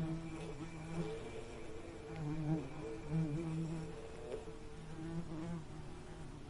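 Bees buzzing in flight: a low hum that wavers in pitch and swells and dips every second or so as they move about.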